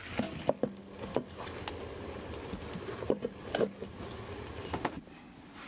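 Diced potatoes frying in a pan on a stove, under a string of sharp clinks and knocks as lids are lifted and set on the pan, several of them ringing briefly.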